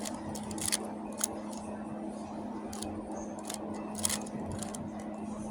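Magnetic speedcube being turned quickly during a solve: irregular clicking and clacking of its plastic layers snapping into place, with a steady low hum underneath.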